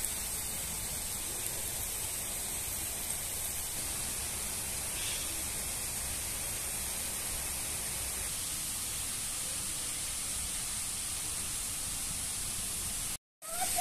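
Steady, even hiss of background noise with no distinct events, cutting out briefly to silence near the end.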